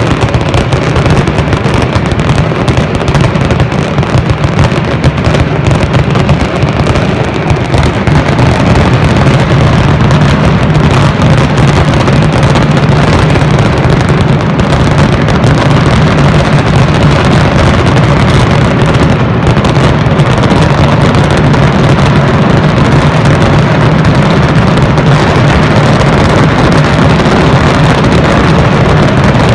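A mascletà: dense strings of firecrackers going off so fast that the bangs merge into one continuous, very loud din, which grows a little louder after about eight seconds.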